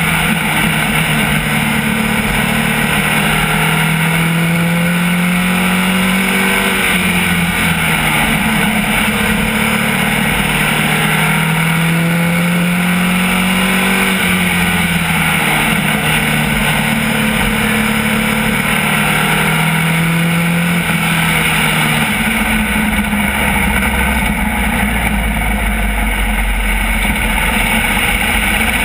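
SK Lite race car's engine heard from inside the cockpit, its pitch climbing and falling again every several seconds as the car accelerates and lifts around the oval, over steady road and wind noise. About three quarters of the way through, the engine note drops to a lower, steadier drone.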